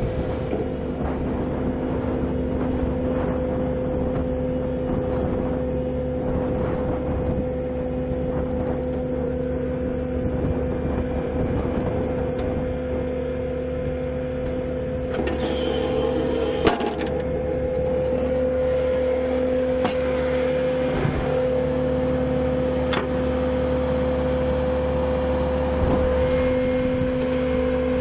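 Heavy machine's engine running steadily: a constant hum over a low rumble, with a few sharp knocks about halfway through and again later.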